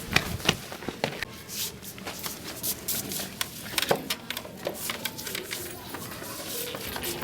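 Irregular knocks, clicks and handling noises in a small room, with faint voices in the background.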